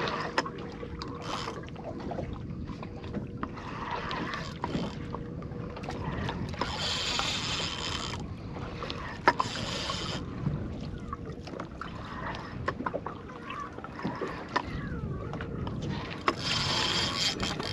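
Open-air sound aboard a small fishing boat: wind on the microphone and water noise, with a faint steady hum, scattered light knocks, and three louder rushes of hiss.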